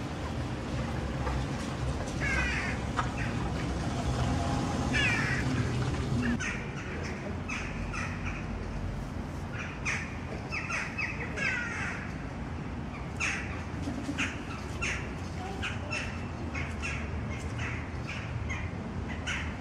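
Birds calling repeatedly in short calls, a few of them sliding down in pitch, more often after about six seconds, over a steady low background rumble.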